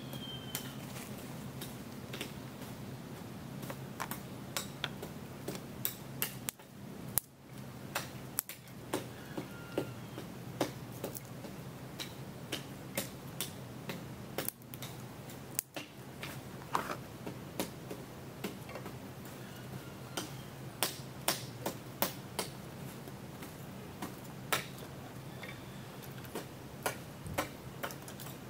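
Dry twigs being snapped by hand and laid into a clay stove: a long string of sharp, irregular cracks and clicks, about one or two a second, over a faint steady low hum.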